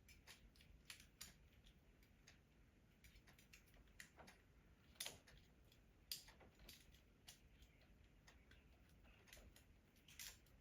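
Faint, irregular small clicks and ticks of wire and metal hose clamps being worked by hand, with a few sharper ticks about four to six seconds in.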